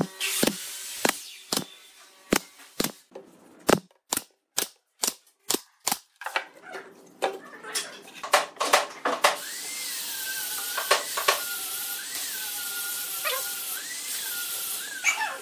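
Pneumatic brad nailer firing a quick run of about a dozen nails into pine boards, sharp shots roughly every half second. After that come a few scattered knocks, and then a steady hiss with a wavering high tone.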